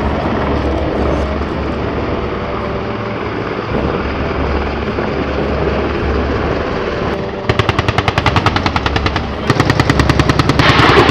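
Steady rotor and engine noise of AH-64 Apache attack helicopters. About seven seconds in come two long bursts of rapid automatic gunfire, about ten shots a second, with a short break between them.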